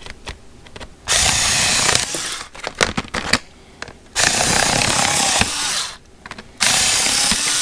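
A power tool running in three bursts of a second or two each, a steady hissing whir, used to cut open plastic blister packaging. A few small clicks fall between the bursts.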